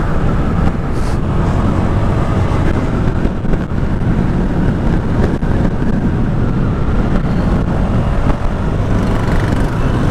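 Honda SH125i single-cylinder scooter riding steadily through city traffic: continuous engine and road noise under a heavy low rumble.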